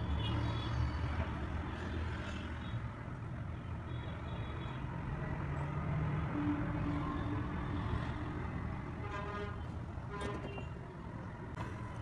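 Steady low rumble of background noise, with a few short pitched tones in the second half.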